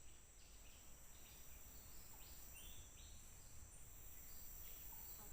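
Faint rainforest insect chorus: a steady high-pitched insect whine, with short chirps repeating every second or so.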